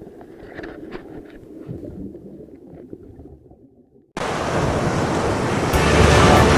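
Rushing sea and wind noise, faint with a few small clicks at first. About four seconds in it cuts suddenly to a much louder rush, and music comes in over it near the end.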